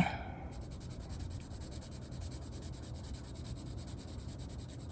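A Mondo Llama colored pencil scratching across coloring-book paper in quick, even back-and-forth shading strokes. It starts about half a second in.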